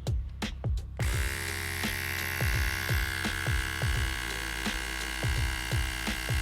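Small electric tyre compressor switches on about a second in and runs steadily with a high hum, inflating a road bike tyre. Background music with a steady beat plays throughout.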